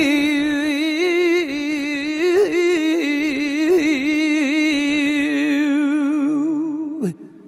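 Male flamenco cantaor singing one long, drawn-out melismatic phrase on a single vowel, the pitch wavering and ornamented throughout, with no instrument heard. The phrase breaks off sharply about seven seconds in.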